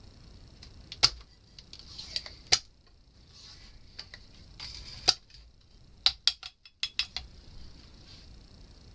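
Scattered sharp clicks and light metallic clinks of small hand tools being handled and set down on a workbench, with a quick run of clicks about six to seven seconds in, over a faint steady high hiss.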